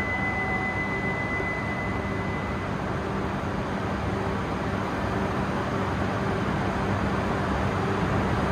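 Steady rushing rumble of a Shinkansen station platform, growing a little louder toward the end as a train draws near. A thin high tone fades out in the first couple of seconds.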